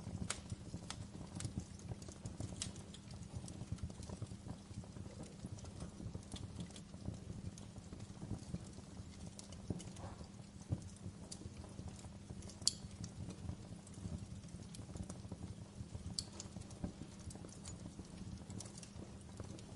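Wood fire crackling in a fireplace: a steady low rumble of burning logs with frequent irregular pops and snaps, one sharper snap about two-thirds of the way through.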